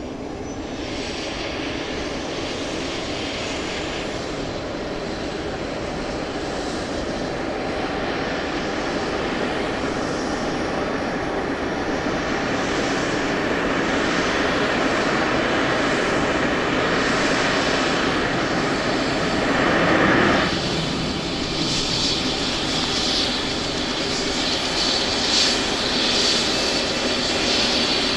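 Bell 427's twin Pratt & Whitney Canada PW207D turboshaft engines starting up: a turbine whine climbs slowly in pitch and the overall sound grows steadily louder as the engines spool up and the rotor gathers speed. There is a brief louder swell about twenty seconds in, and a pulsing hiss near the end.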